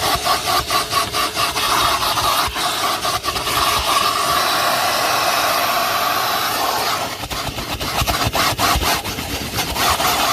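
Numatic NTD570 commercial vacuum cleaner running with a steady motor whine while its nozzle scrapes and clicks over the surface being vacuumed. The scraping and clicking ease off in the middle and start again about seven seconds in.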